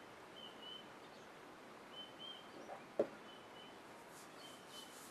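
A glass set down on a wooden stand with a single sharp knock about three seconds in. Faint high chirps repeat about once a second throughout.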